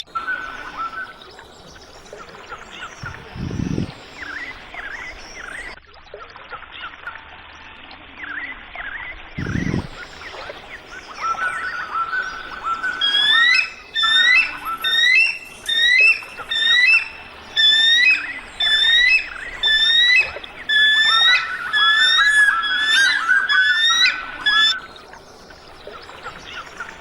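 An eagle calling a long series of sharp, high piping notes, about one a second, loudest in the second half, over softer scattered bird chirps. Two short low thumps come in the first half.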